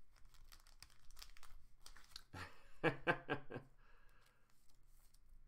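Thin plastic card sleeve crinkling and rustling as a trading card is handled and slid into it. A brief voiced sound from the man about three seconds in.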